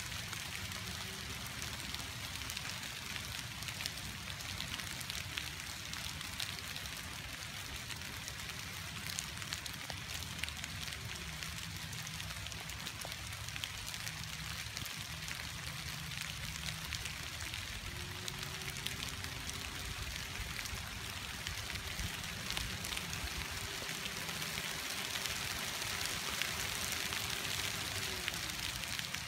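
Steady rain falling onto fallen leaves and wet ground, an even patter with no breaks. A faint steady hum comes in about two-thirds of the way through and stops just before the end.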